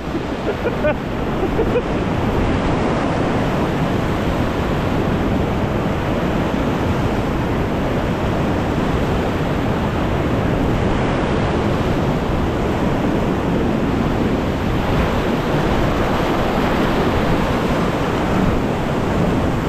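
Whitewater rapids rushing steadily in a continuous, even wash of water noise.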